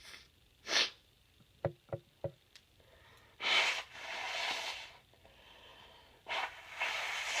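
A person's nasal sounds: a sharp sniff, three short catches of breath, then two long forceful rushes of air through the nose, the first about three and a half seconds in and the second near the end.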